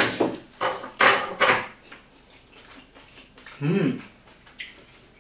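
Fork scraping and clinking on a white plate as food is cut and picked up: a few sharp scrapes in the first two seconds, the loudest about a second in, and a light click later.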